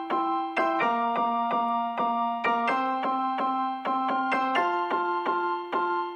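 Background music: a light electric piano or keyboard tune with notes plucked about three times a second over sustained bass notes that change every couple of seconds.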